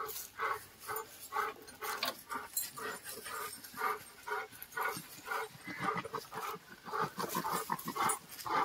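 American bully dog panting hard in a steady rhythm of short, whiny breaths, about two to three a second.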